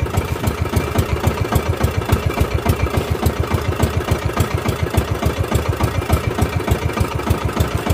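Bangka outrigger boat's engine running steadily under way, an even, fast chugging.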